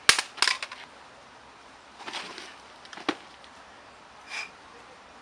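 A man collapsing onto a gravel path. There is a sharp crack at the start and a quick run of knocks after it, then scuffing on the gravel about two seconds in and a single sharp click about three seconds in.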